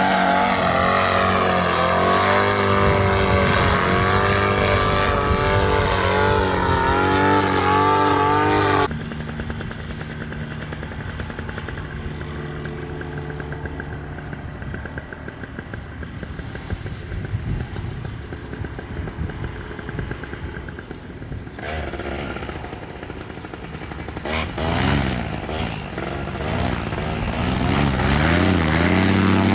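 Paramotor engine and propeller running, the pitch wavering up and down. About nine seconds in the sound drops abruptly to a much quieter level, then swells back to full loudness near the end.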